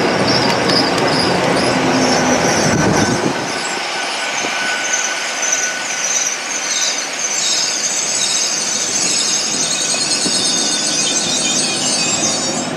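GWR Intercity Express Train rolling slowly past the platform, its running gear giving a loud, wavering high-pitched squeal that grows stronger in the second half. A heavy low rumble underneath drops away about three seconds in.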